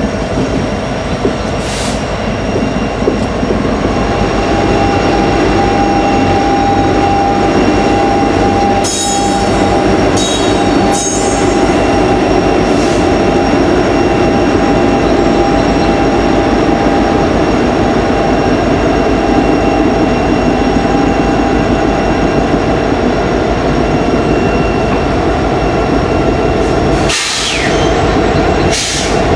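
Railroad cars rolling past with a steady heavy rumble and clatter of wheels on rail. A wheel squeals with a steady high tone from a few seconds in until past the middle, and a few short sharp screeches cut in around the middle and again near the end.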